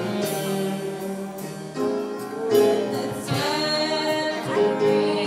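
Saxophone playing a slow gospel hymn with piano, while a congregation sings along. The saxophone holds long notes, and some of them waver in pitch in the middle.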